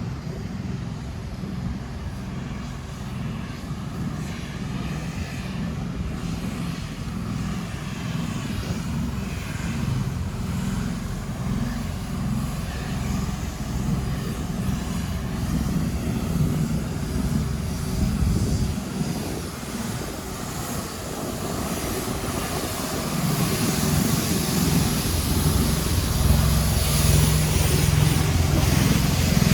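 Steady low engine rumble, growing louder over the last several seconds.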